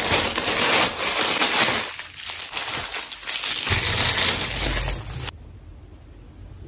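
Plastic packaging crinkling and crumpling as a black plastic mailer bag and a clear plastic bag are unwrapped by hand; it stops suddenly about five seconds in.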